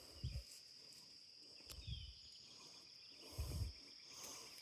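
Steady high-pitched insect chirring in the background, with three soft low thumps on the microphone about a second and a half apart.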